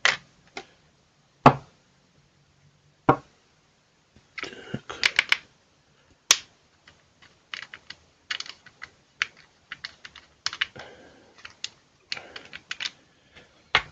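Small clicks and taps of an eGo CE5 e-cigarette's metal and plastic parts being unscrewed, handled and set down on a wooden desk: a few separate sharp taps, then a fast cluster of clicks, then a run of small irregular clicks.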